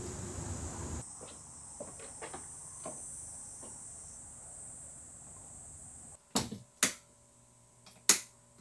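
Crickets chirping steadily in a high, even trill. In the last couple of seconds come several sharp knocks.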